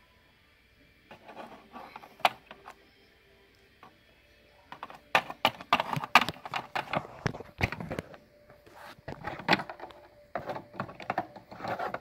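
Hard plastic toy figurines clicking and tapping against a plastic playset as they are moved by hand. The taps come in irregular clusters, a few at first and quick and dense from about five seconds in.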